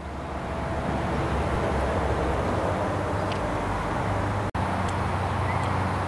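Steady outdoor ambience with a low rumble, fading in over the first second, with a brief dropout about four and a half seconds in.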